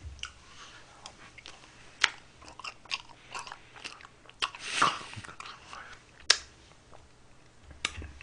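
Close-miked eating sounds of someone working through soft ice cream cake: chewing and wet mouth smacks, with scattered sharp clicks of a metal spoon and fork. The loudest click comes about six seconds in.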